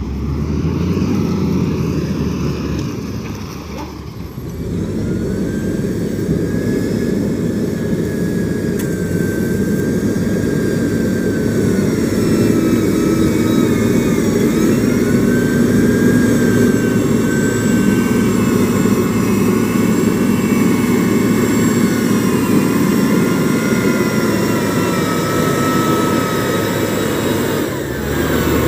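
XCMG motor grader's diesel engine running steadily under load while the machine grades soil, a dense low drone with a thin high whine that wavers slightly in pitch. It dips briefly about four seconds in, then runs louder and even.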